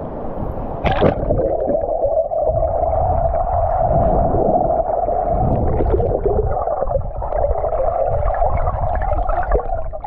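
A splash about a second in as the camera goes under the surf, then the muffled gurgling and rumble of shallow ocean water heard underwater, with a steady drone.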